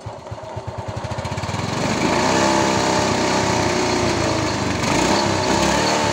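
Yamaha Mio i 125 scooter's single-cylinder four-stroke engine popping evenly at idle, then revved up over the first two seconds and held at higher revs, rising and falling, through the exhaust.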